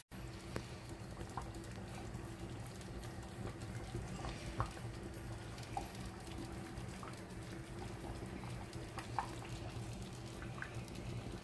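Thick rice congee with pork offal simmering in a stainless-steel pot: a low, steady bubbling, with single bubbles popping now and then.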